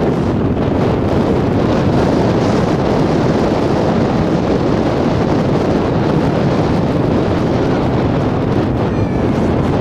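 Steady, loud wind buffeting the microphone, a dense low rumble that does not let up.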